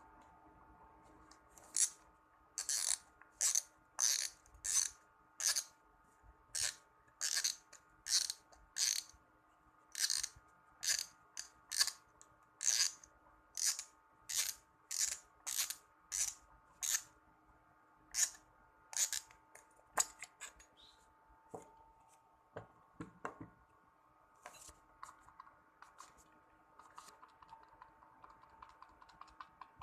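Shimano 16 Vanquish 4000XG spinning reel being shaken, its spool cap rattling in short, sharp bursts about one and a half times a second, as if a small part inside were loose or unassembled. After about twenty seconds the rattles give way to fainter, scattered clicks.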